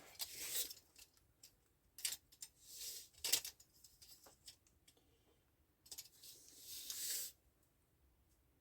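Handling noises while steel anchor rods are sorted and fitted: scattered light clicks and knocks with a few short scraping rustles, then near silence near the end.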